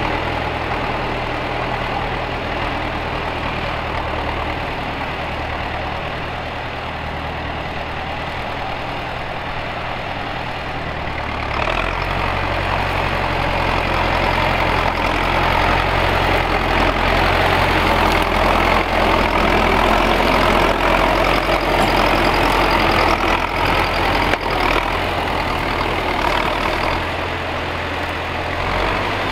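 T-40 tractor's air-cooled two-cylinder diesel engine running steadily. About twelve seconds in, its note changes and it grows louder, as if taking on load or more throttle, then eases off near the end.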